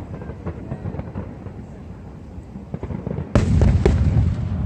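Aerial fireworks shells bursting: a low rumble with scattered cracks, then a sudden loud boom a little over three seconds in, followed by a dense run of crackles and booms.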